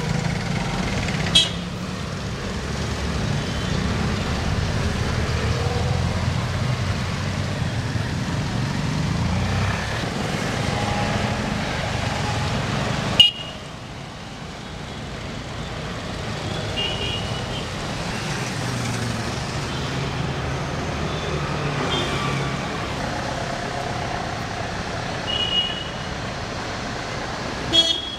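Street traffic: a steady rumble of passing motor vehicles with a few short horn toots. A sharp click comes about halfway through, after which the traffic is quieter for a while.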